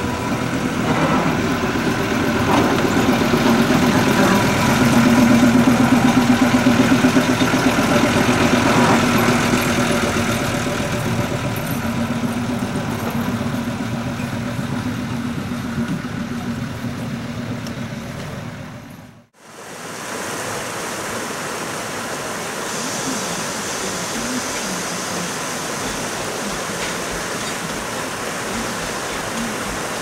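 Small forest-railway diesel locomotive's engine running steadily as the train moves slowly, with a few faint clicks. About two-thirds through, the sound cuts out abruptly and gives way to a steady rushing noise without the engine.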